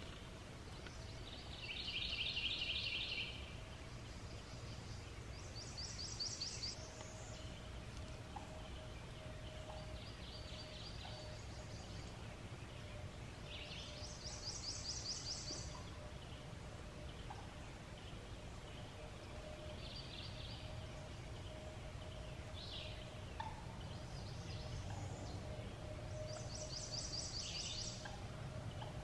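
A songbird singing short phrases of rapid repeated notes every few seconds, some phrases pitched lower and others higher. A faint steady hum and low rumble run underneath.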